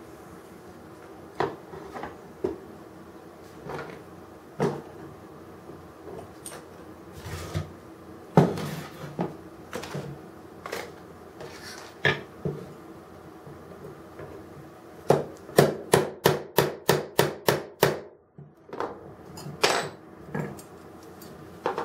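Small metal tools clicking and tapping against a diecast metal crane model as a stuck pin is worked out. Scattered single taps, then in the last third a quick run of about ten even taps, about three a second.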